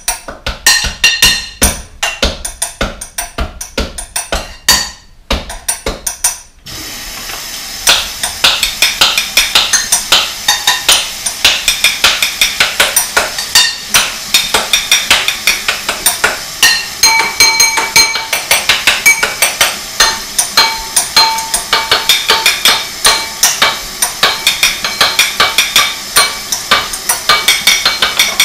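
Dishes and cutlery clinking and knocking in the sink in a fast, steady beat, with brief ringing notes now and then. About six or seven seconds in a faucet starts running, a steady rush of water under the clinks.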